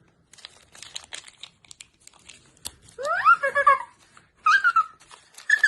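Plastic blind-bag packet crinkling and crackling as it is handled and torn open. About three seconds in, a young child's wordless high voice joins in with short sliding whines.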